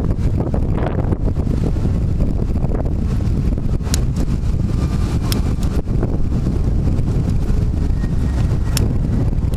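Wind buffeting the microphone: a loud, steady low rumble, with a few brief sharp clicks.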